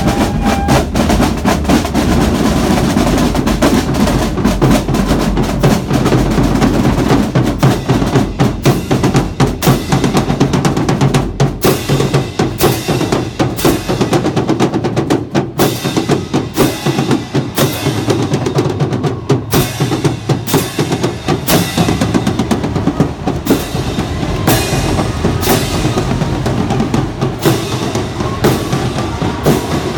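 A high school marching drumline playing a cadence: bass drums, snare drums and cymbals, with dense, rapid strokes and loud, regular accents.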